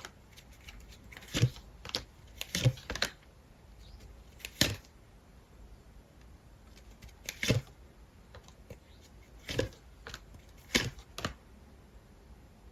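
Tarot cards being handled and laid down on a table: a dozen or so short, light taps and clicks, some in quick pairs, with pauses between.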